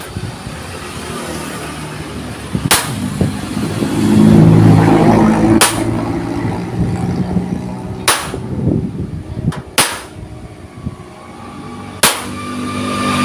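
Sharp knocks, about five of them spaced two to three seconds apart, like blows on steel plate, over an engine drone that swells about four seconds in.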